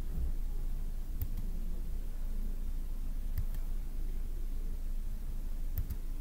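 Steady low background hum and hiss of room tone, with three faint, short clicks spread across the stretch.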